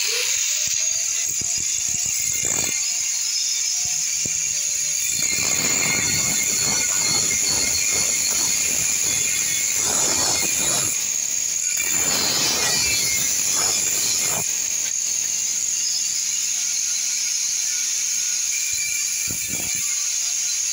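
Handheld angle grinder with a cut-off disc switching on and running with a steady high whine while cutting steel tube. The disc bites into the metal in several stretches of harsher grinding noise, around six, ten and thirteen seconds in.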